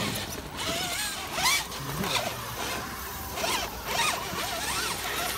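Radio-controlled rock crawlers' electric motors and geartrains whirring in short spurts as they climb over rock.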